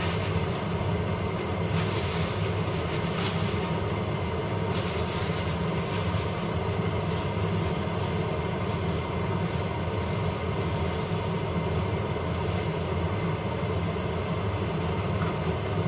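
Steady low hum and rush of a running kitchen fan, with a few brief rustles as vegetables are tipped from a plastic bag into a pot.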